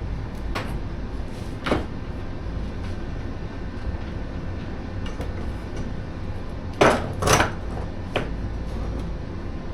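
A few sharp metal clanks as the freshly tack-welded metal pieces are knocked and handled. The two loudest strikes come close together about seven seconds in, over a steady low rumble.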